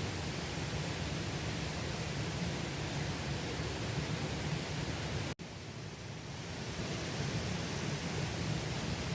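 Mountain stream water rushing steadily, with a split-second dropout about five seconds in.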